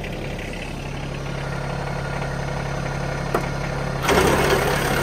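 Yanmar SA425 compact tractor's diesel engine idling steadily, a short click about three seconds in, then a second later the sound jumps suddenly louder and noisier and stays that way.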